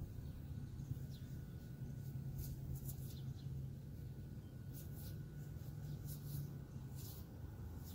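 Faint scratching and rustling as fingers handle and turn a dirt-covered quartz crystal, in short scrapes a second or so apart, over a low steady rumble.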